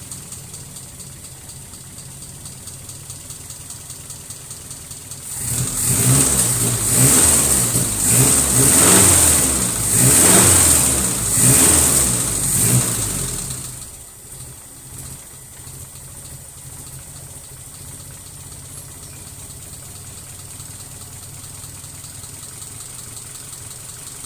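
Mitsubishi 4G33 inline-four engine idling roughly, then revved in a quick series of loud blips for about eight seconds before it settles back to an uneven idle. The rough idle comes from a vacuum leak.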